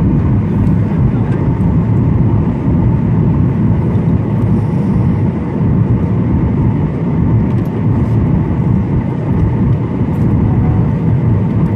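Steady cabin roar of a Boeing 737-900 in flight on approach: engine and airflow noise heard from inside the cabin, deep and unbroken, with a faint steady tone above it.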